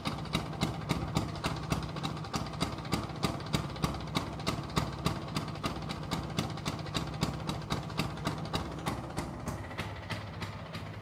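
Vespa Sprint's single-cylinder two-stroke engine idling at the exhaust pipe, each exhaust beat distinct in a steady, even run of puffs several times a second. The engine is freshly rebuilt and not yet run in.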